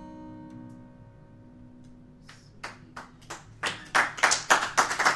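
The acoustic guitar's final chord fades out, then audience applause begins about two seconds in and swells into full, steady clapping.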